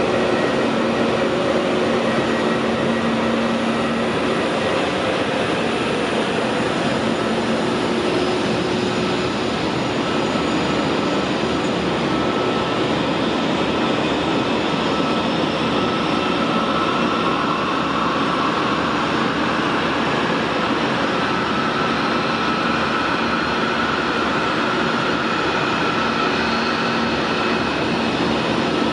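Airbus A320neo jet engines running at idle: a steady whine with several held tones over an even rushing noise.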